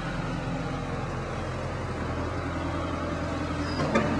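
A motor engine running steadily in a low hum, with a short click near the end.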